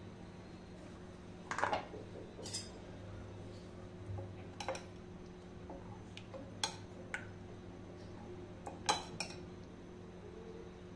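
A steel spoon stirring a runny wheat-flour batter in a glass mixing bowl, knocking against the glass in sharp, separate clinks, about seven of them spread through the stretch.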